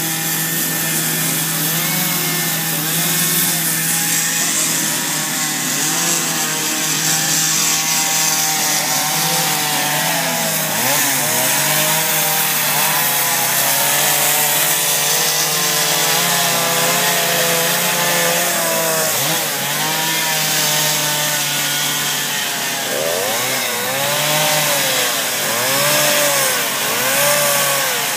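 Chainsaws running while carving into wood, the engine note wavering under load. Near the end a saw revs up and down over and over, about once a second.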